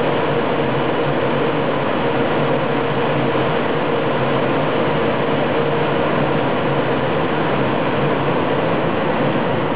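DB class 111 electric locomotive's cooling blowers running: a steady, unchanging rushing noise with a faint constant hum.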